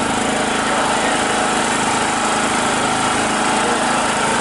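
A small engine running steadily, an unbroken drone.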